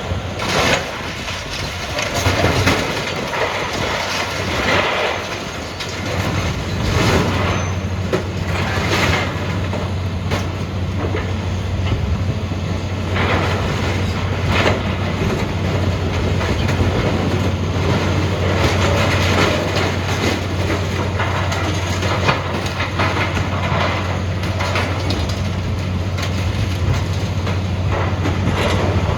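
Hydraulic excavator working scrap metal: a steady low engine hum, stronger from about six seconds in, under repeated clanks, crunches and scrapes of sheet-metal lockers being crushed and loaded.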